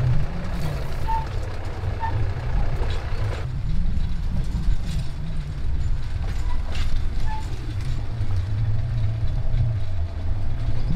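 Engine of a Hyundai light truck converted to run on railway track, running with a steady low rumble.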